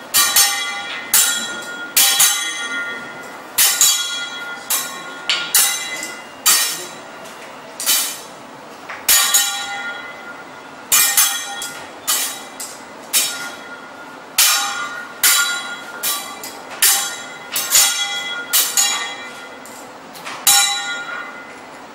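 Teppanyaki chef's steel spatula and knife striking each other and the griddle in a rhythmic show routine: sharp metallic clinks, about two a second, each ringing briefly.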